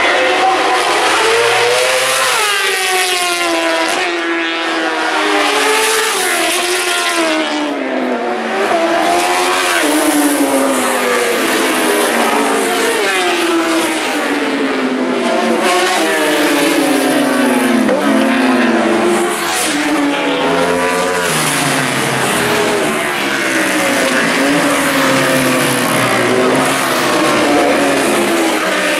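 Several 1000cc four-stroke superbikes racing past one after another, engines revving hard and dropping through gear changes. Their pitch slides up and down as they pass, with no break in the sound.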